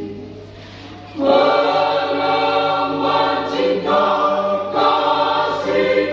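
Choir singing in held chords; after a brief softer lull, the full choir comes back in loudly about a second in.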